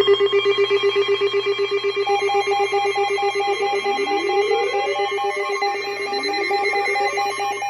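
Layered electronic alarm tones start suddenly: a rapidly pulsing steady tone, joined by a higher pulsing tone about two seconds in. About 3.5 s and 6 s in, a rising siren whoop sweeps up, repeating every couple of seconds.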